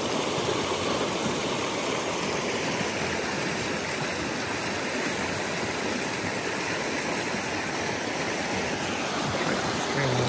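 Fast-flowing creek water rushing steadily through a riffle of white water.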